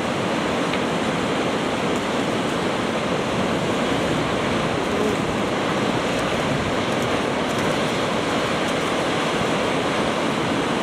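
Sea surf breaking and churning among volcanic shore rocks: a steady, even rush of water with no single wave standing out.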